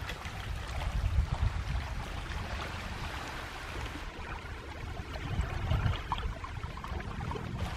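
Small waves lapping and splashing at a lakeshore, with wind buffeting the microphone in uneven low gusts.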